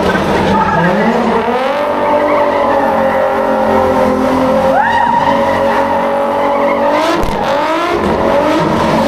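A car engine revving hard at a drift event. The revs climb over the first two seconds, are held high for several seconds, then rise again near the end, with the tyres squealing as they spin.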